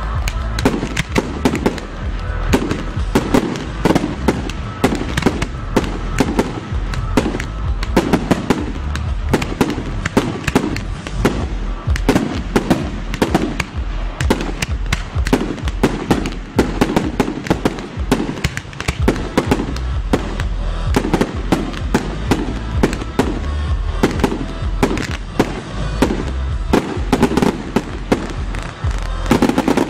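Fireworks display: a dense, continuous string of sharp bangs and crackles from bursting shells, several a second, with music playing underneath.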